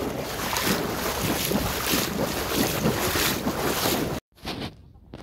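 Wind buffeting the microphone over lapping water. It cuts off abruptly about four seconds in.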